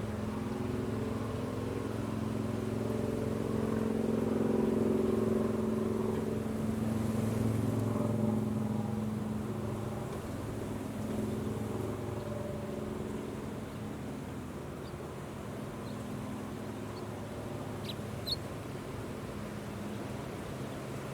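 A motor vehicle's engine hum, growing louder over the first few seconds and fading away by about halfway through, over a steady rushing noise. A few faint short high chirps come near the end.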